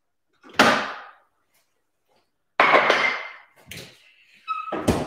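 A fridge door opening and shutting, with about four separate thuds and knocks a second or so apart.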